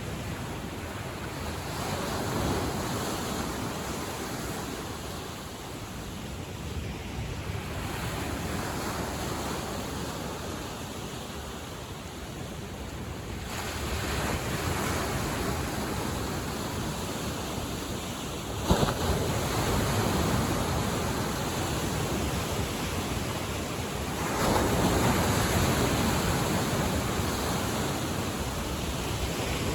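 Lake Michigan waves washing onto the shore, swelling and easing every five or six seconds, with wind on the microphone. One sharp knock sounds about nineteen seconds in.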